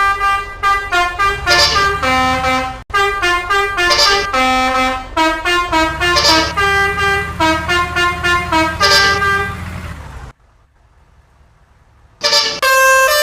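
Basuri multi-tone bus horn playing a quick melody of short honked notes, with a low rumble under parts of it. It breaks off for about two seconds near the end, then starts again.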